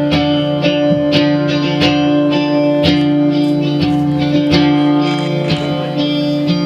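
Live rock band playing an instrumental passage: held guitar chords over a steady, regular beat.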